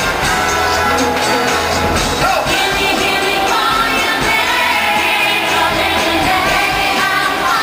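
Live pop concert music through an arena sound system: a female lead singer singing into a microphone over loud band and backing-track music.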